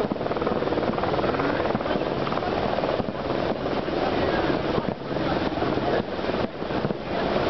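Fireworks going off in quick succession: a continuous rumble of bursts and crackle, with people's voices mixed in.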